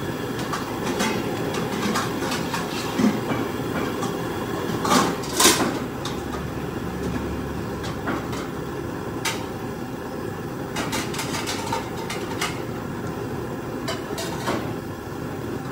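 Steady low rumble with scattered knocks and clatters of things being handled; the loudest knock comes about five seconds in.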